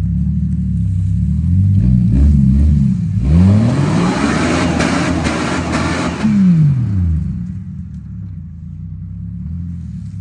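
Jeep Grand Cherokee ZJ engine idling, blipped a couple of times about two seconds in, then revved hard for about three seconds before the revs fall back to idle.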